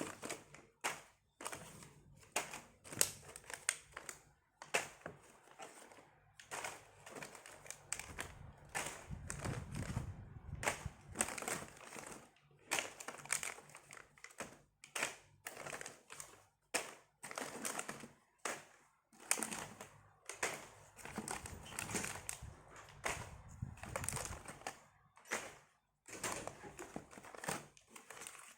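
Packaging being handled and opened: dozens of irregular sharp clicks and crinkles of plastic wrapping and boxes.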